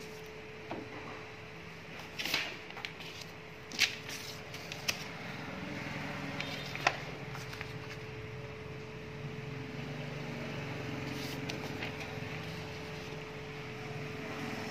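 Printed paper sheets handled and rustled, with several short sharp crinkles in the first seven seconds, over a steady one-pitch electrical hum.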